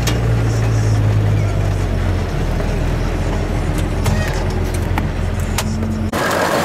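New Holland T7030 tractor's six-cylinder diesel engine running steadily, heard from inside the cab, its drone dropping lower about a second and a half in, with a few light clicks. The sound cuts off abruptly near the end.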